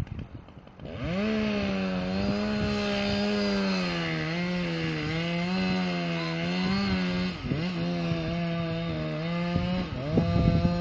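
Chainsaw revving up about a second in and running at high speed while cutting a large tree, its pitch sagging and recovering as it bites into the wood, with a brief drop in speed two-thirds of the way through.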